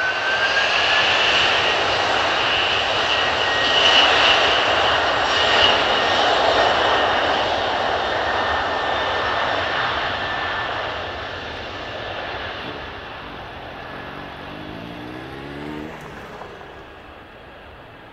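Kawasaki C-2 transport's two General Electric CF6 turbofans spooling up to takeoff power: a high whine climbs over the first second or so, then holds steady over a loud roar during the takeoff roll. The sound fades through the second half as the aircraft runs away down the runway toward lift-off.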